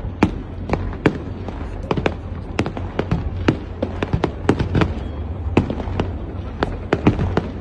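Fireworks display: a rapid, irregular string of sharp bangs and cracks, about three to four a second, over a steady low rumble.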